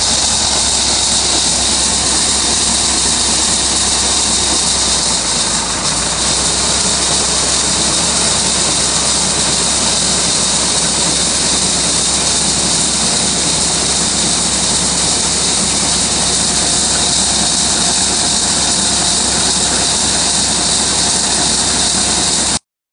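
Auger running steadily, pouring seed into a grain drill's seed box, over a steady engine and a loud even hiss. It cuts off suddenly near the end.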